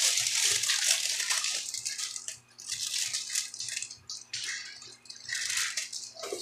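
Packaging rustling and crinkling in irregular bursts as it is carefully opened by hand.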